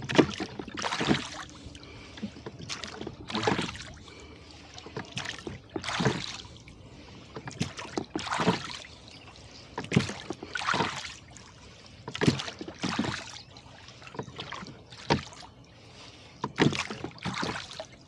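Oars rowing a boat at a steady rhythm, a stroke about every two and a half seconds, each one a short splash or knock as the blades work the water.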